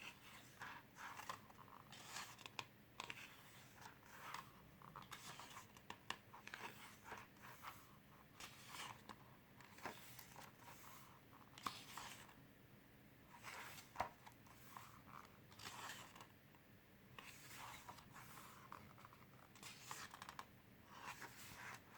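Quiet paper handling: glossy booklet pages turned one after another, each turn a short soft swish, with a couple of sharper paper snaps about 12 and 14 seconds in.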